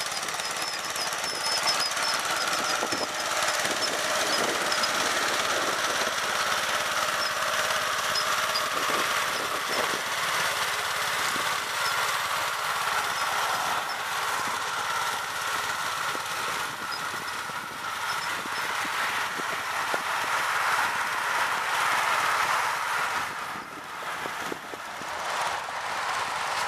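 Snapper LT11 lawn tractor's small engine running steadily while the tractor pushes snow with its front plow blade, with a constant clatter of clicks and knocks.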